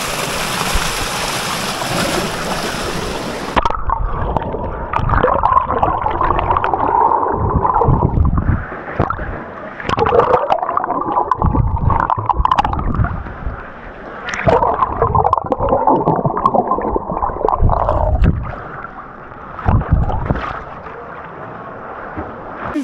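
River water rushing over rock, then after about four seconds the sound turns muffled as it is heard from under the water: gurgling and bubbling that comes in several separate surges.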